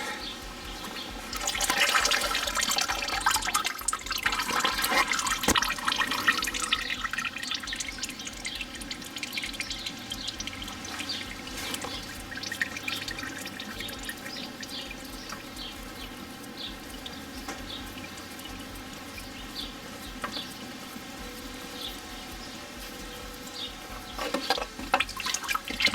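Engine oil pouring and splashing out as the spin-on oil filter is unscrewed from a Ford 1.8 TDCi diesel. The flow is heaviest a couple of seconds in and then runs on more quietly.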